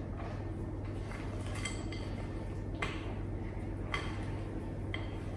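Spatula folding thick cookie dough in a glass mixing bowl: soft scraping and squelching, with four sharp clinks of the spatula against the glass, roughly a second apart from just before the middle onward. A steady low hum runs underneath.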